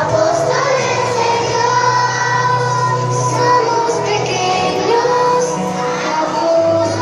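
A group of children singing a song together over steady instrumental accompaniment.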